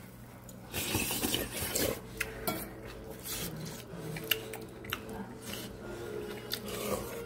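Eating utensils clinking and scraping against a metal bowl and dishes in scattered sharp clicks, over a low steady hum.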